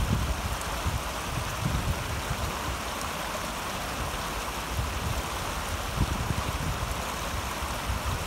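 Shallow stream water running steadily over a rocky bed, with faint low rumbles coming and going.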